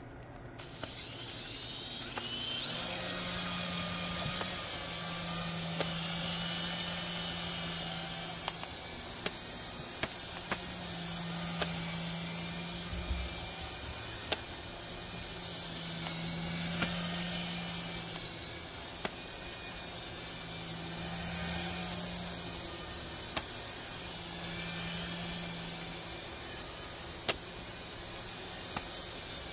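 KY202 Black Bee mini RC helicopter's electric rotor motors spinning up, the pitch rising over the first couple of seconds, then a steady high whine that wavers slightly as the helicopter flies.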